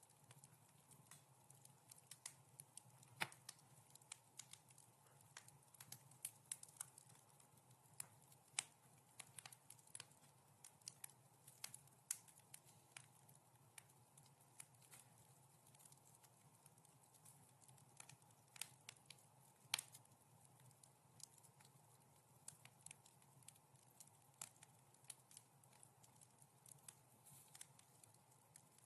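Wood fire crackling in a fireplace: irregular sharp pops and snaps, a few much louder than the rest, over a faint steady low hum.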